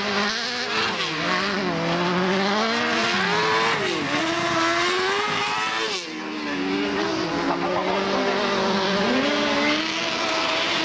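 Racing buggy engines on a dirt autocross track, revving hard, their pitch rising and falling again and again as they accelerate and shift. More than one engine is heard at once, with a short dip in level about six seconds in.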